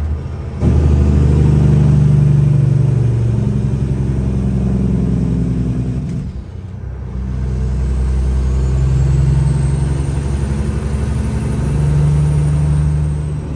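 Caterpillar 6NZ inline-six diesel in a Kenworth W900 pulling under load, heard from inside the cab, its note stepping up and down. The sound drops briefly near the start and again about six seconds in, then builds back up.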